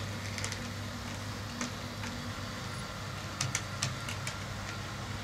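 Two TT-scale model diesel locomotives (MTB ČD class 850) running together on analog DC with a steady low motor hum. A cluster of sharp clicks a little over three seconds in comes from the wheels crossing the turnouts.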